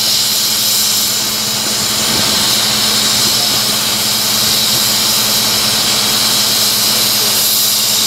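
Hanfa HFW200L water well drilling rig working in hard rock: a steady engine hum under a loud, even hiss.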